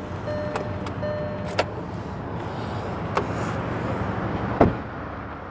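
A few small clicks at the Hyundai Aura's ignition and controls, with a faint steady tone in the first second and a half. A little over four and a half seconds in, the car door is shut with a heavy thump, the loudest sound, over a low steady hum.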